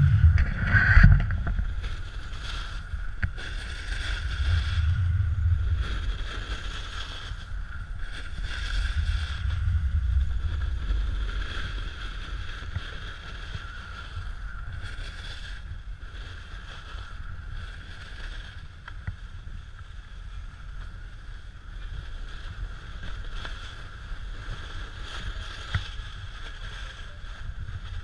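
Wind rushing over a selfie-stick action camera's microphone as a snowboard slides and scrapes down a groomed ski slope. The rumble swells a few times, about a second in, around five seconds and around ten seconds, then settles as the ride slows.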